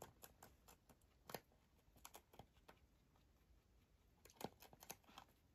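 Rabbit biting and crunching a cabbage leaf: faint, irregular crisp clicks in short clusters, the loudest a little over a second in and again about four and a half seconds in.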